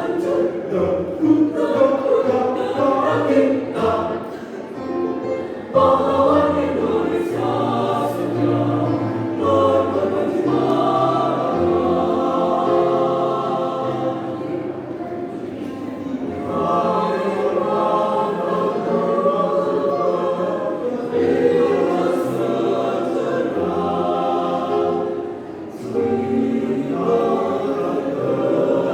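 A choir singing in parts, with short breaths between phrases.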